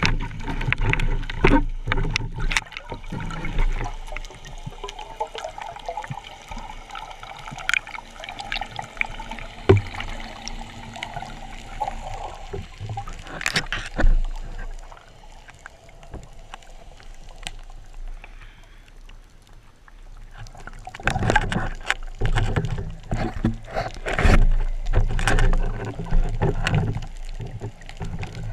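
Water splashing and gurgling, with irregular knocks and clicks.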